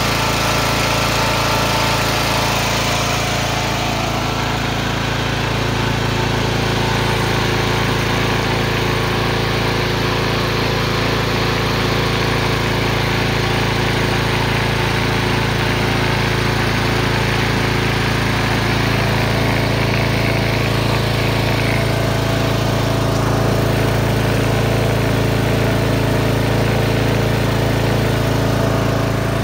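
Riding lawn mower engine running steadily, spewing white smoke; the owner says it runs only a couple of minutes before acting as if it is out of gas and dying.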